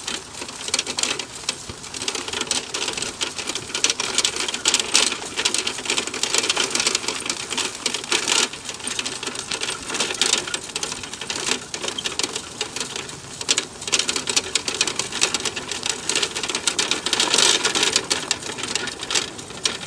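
Dog cart rolling fast over asphalt, its metal frame and wheels rattling in a dense, continuous clatter of rapid clicks.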